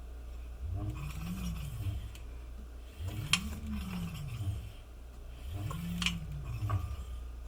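QS205 50H V3 electric hub motor spun up and let run down three times, its deep buzzing tone rising and then falling in pitch each time over a constant low hum. This is the buzz and vibration whose cause the owner cannot place. Brief metallic scrapes come near the top of two of the spin-ups, typical of the brake rotor rubbing the pads.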